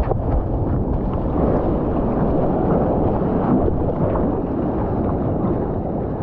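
Steady rush of ocean surf and wind buffeting the microphone: a rough, low-heavy rumble with no distinct tones.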